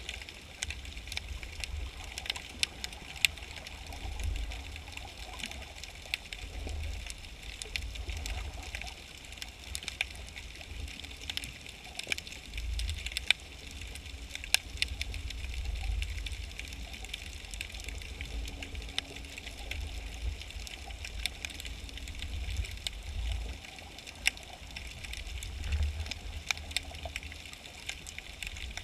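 Underwater ambience under the pier: a steady low rumble that swells now and then, with a constant crackle of sharp clicks and a faint on-and-off hum.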